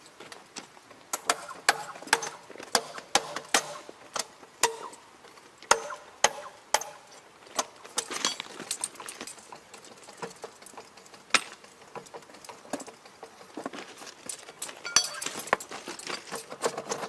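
Irregular sharp metallic clicks, clinks and knocks of hand tools and a clamping device being fitted and adjusted on a steel rail, with a busy run of strikes in the first several seconds and another cluster near the end.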